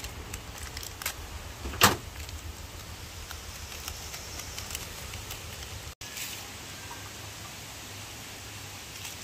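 Handling noises from seasoning meat: a few light clicks and one sharp knock about two seconds in, over a steady low background hiss. The sound drops out for an instant about six seconds in.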